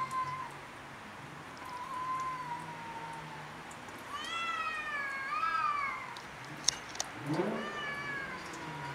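Cats yowling at each other in a territorial standoff: long, drawn-out low yowls, a louder one in the middle whose pitch rises and falls, then a rising yowl near the end. Two sharp clicks come just before that last yowl.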